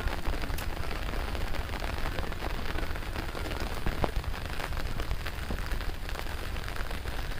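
Rain falling on a fabric umbrella close overhead and on the flooded field's water: a dense, steady crackle of drop hits with a few sharper taps, over a low rumble.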